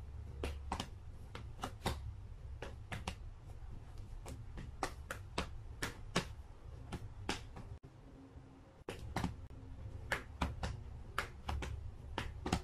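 Quiet, irregular clicks and taps, a few a second, over a low hum.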